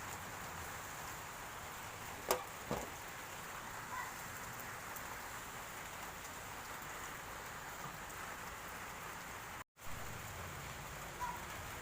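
Steady background hiss with a few faint short clicks.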